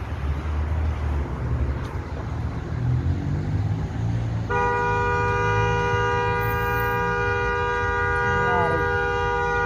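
Traffic rumbling on the street, then a vehicle horn blasts in one long steady held note from about halfway in.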